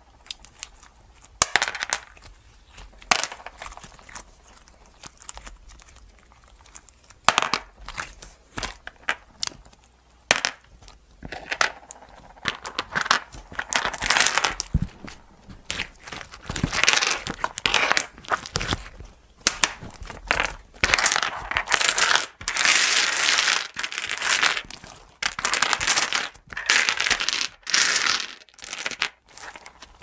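Homemade slime with glass gems mixed in, squeezed and kneaded by hand. Scattered sharp pops come first, then from about halfway longer runs of sticky squelching noise.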